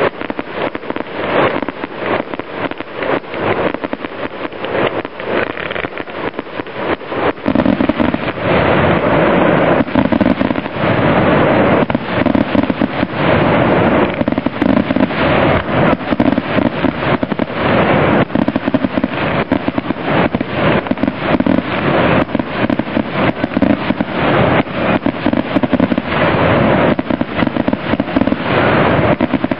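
Fireworks display going off: a rapid run of cracks and bangs that grows louder and denser about seven seconds in, becoming an almost continuous barrage.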